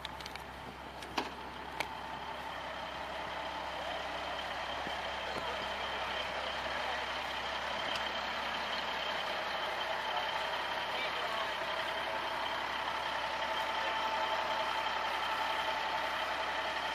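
Fire engine running with its front-mounted pump being worked, the sound growing louder over the first several seconds and then holding steady, with a steady high whine over it. Two sharp clicks come within the first two seconds.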